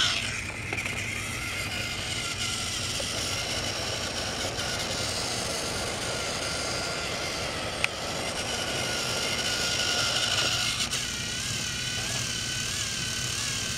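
Battery-powered Trackmaster toy train motor whirring steadily as the engine runs along plastic track, its whine wavering slightly near the end. A single sharp click comes about eight seconds in.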